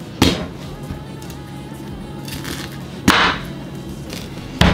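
Kitchen knife chopping through raw sweet corn cobs and striking a wooden cutting board: three sharp chops, one near the start, one about three seconds in and one at the end.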